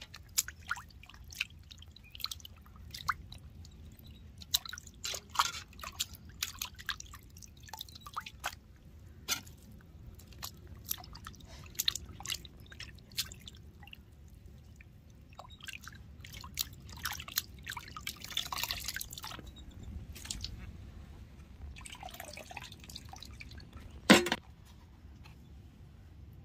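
Water dripping and splashing in irregular bursts, with scattered clicks and clatter as food is handled by hand in a vessel of water. One sharp, ringing knock comes near the end.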